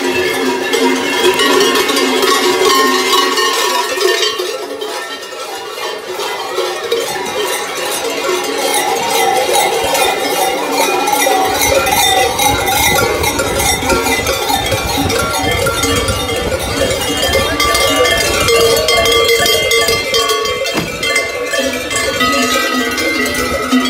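Many large cowbells clanging continuously and unevenly, swung from the belts of masked carnival figures as they walk in procession.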